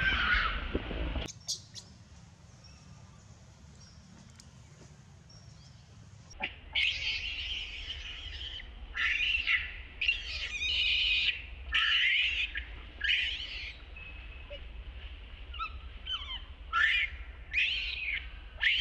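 Baby macaque screeching in short, high-pitched, arching cries. There are a few cries in the first second, then a quiet stretch of several seconds, then about a dozen more cries in an uneven string from about six seconds in. These are the distress cries of an infant being refused the nipple.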